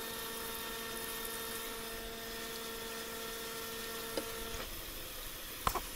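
Tap water running into a utility sink, with a steady hum of several tones that stops about four and a half seconds in; a short click near the end.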